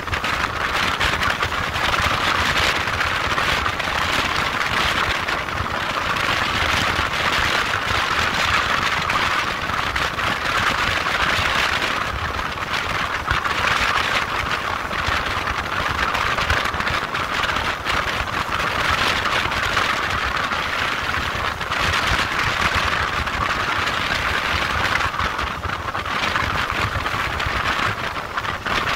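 A motorcycle being ridden: a steady rush of wind and road noise, with engine rumble underneath.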